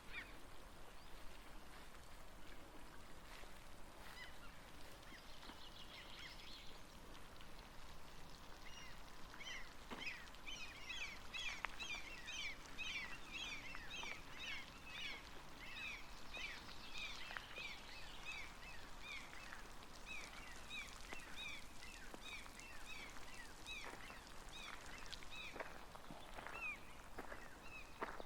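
A flock of birds calling together: many short, high, falling chirps overlapping, starting about a third of the way in and thinning out near the end.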